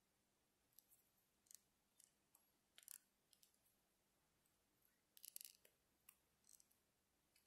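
Near silence with scattered faint, short ticks and rustles, a small cluster about five seconds in: hands working yarn and a sewing needle through a crocheted amigurumi piece.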